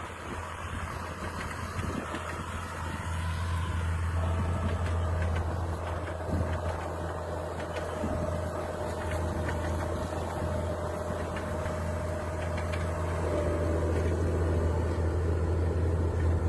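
Fiat 1000 DT tractor's diesel engine running steadily under ploughing load, with a steady whine over it for much of the time, gradually getting louder.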